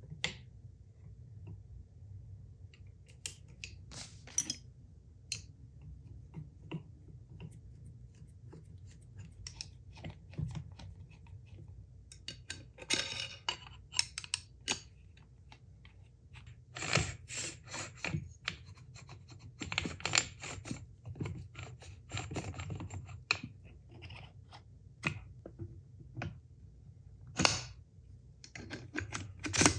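Small metal parts clicking, clinking and scraping as a gear train, side plates and wheels are handled and fitted together by hand, with busier spells of clatter, over a low steady hum.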